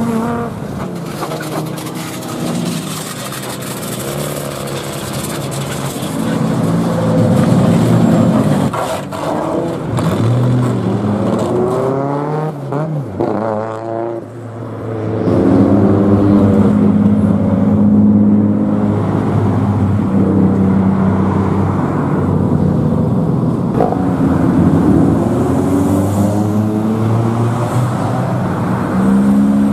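Lowered custom cars with loud modified exhausts driving past one after another, their engines revved up and down repeatedly so the exhaust note keeps climbing and falling. About 12 seconds in comes a quick run of sharp revs, followed by a steadier, held engine note.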